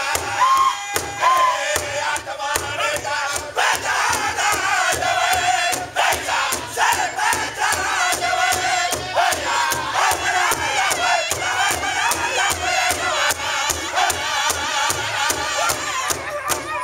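Northern-style powwow drum group singing together in high, straining voices over a steady, even beat of several drumsticks striking one large hide drum.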